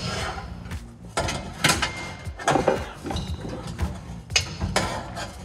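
A 3-inch stainless steel exhaust pipe clanking and knocking as it is forced and twisted into the pipe ahead of it. About half a dozen irregular metal knocks and clinks.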